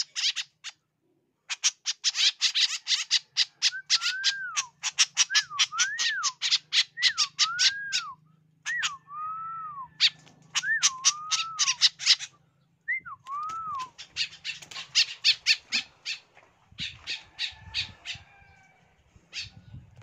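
A group of white-breasted woodswallows calling in fast runs of harsh, squawking notes, with lower whistled notes that rise and fall mixed in; the calls break off briefly a few times and thin out near the end.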